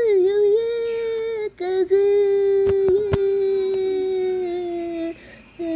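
A long steady pitched tone held in a few drawn-out notes, with small scoops in pitch, breaking off briefly about a second and a half in and again near the end. A few sharp clicks cut across it around the middle.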